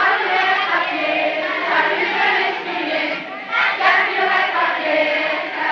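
A crowd of children's voices raised together, shouting and calling over one another in a continuous, loud mass.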